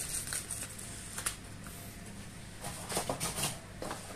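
Handling noise from cardboard packaging and plastic wrap: scattered light taps, clicks and rustles, busiest about three seconds in.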